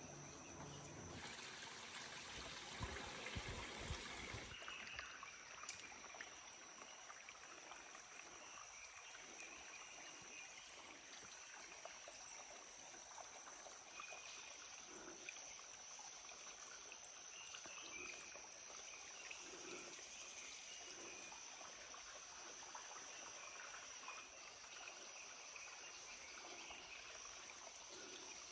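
Faint running water of a stream, with a steady high insect drone over it. A louder stretch of rustling noise comes a second or two in and lasts a few seconds.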